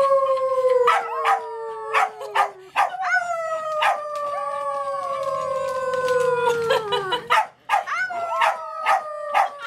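A woman and a white Chihuahua puppy howling together: long drawn-out howls that slide slowly down in pitch, each lasting several seconds, one fading about two and a half seconds in, a new one rising about three seconds in and another near the end, with short sharp sounds between them.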